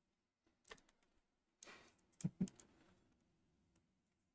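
Faint handling noises of trading cards on a table: a soft click, a brief scrape, then two knocks just over two seconds in, with near silence between.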